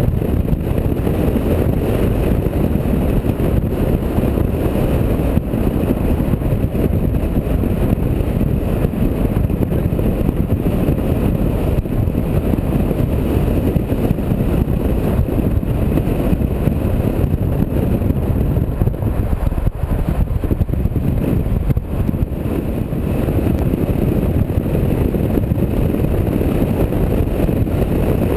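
Smart Fourtwo with its roof open driving at a steady cruising speed: a loud, steady rush of wind and road noise with the small car's running mixed in.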